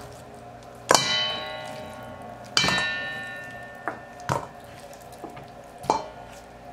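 Stainless steel mixing bowl clanging and ringing as raw chicken pieces are dropped into it: two loud clangs about a second apart, each ringing on and fading, then a few softer knocks.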